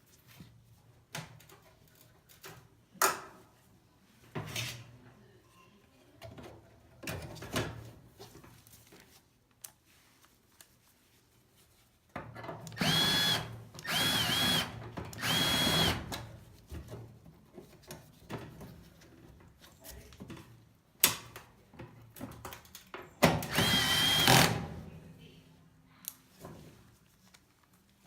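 A power drill runs in four short bursts of about a second each, its whine dipping briefly in pitch during some of the runs. Sharp knocks and clicks of handled metal parts fall in between, two of them louder than the drill.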